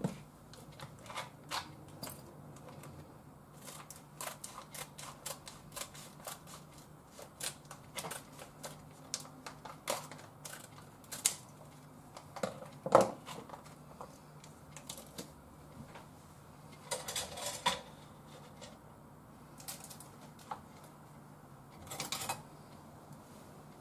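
Kitchen scissors and a packet being handled and cut open: a run of irregular sharp clicks and snips, the loudest snap about halfway, with two short crinkling rustles of the packet later on.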